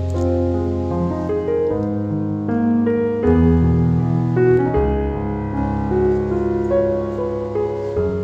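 Background piano music: a slow melody of single notes over held low bass notes.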